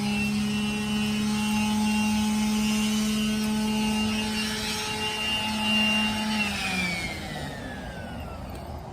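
Electric power sander running at a steady pitch, its sandpaper hissing against the work. About two-thirds of the way in it is switched off and its whine falls in pitch as the motor spins down.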